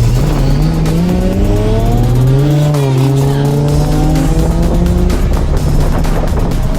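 Car engine accelerating hard, its pitch climbing, dropping briefly about three seconds in as it shifts gear, then climbing again.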